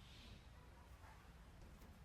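Near silence: faint background hiss and low rumble, with a soft breathy hiss right at the start.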